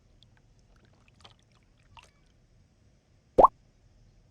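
A single short plop with a quick upward-sweeping pitch, like a small object dropping into water, a little over three seconds in. Before it come a couple of faint ticks.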